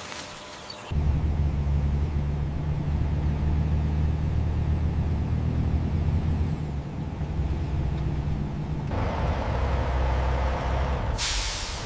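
A steady low rumble, like a machine or engine running, starts about a second in. A hiss joins it near the end, and a louder rush of noise comes at the very end.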